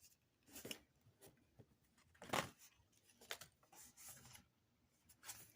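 Faint handling of a paper pop-up card: a few short rustles and taps, the loudest about two seconds in.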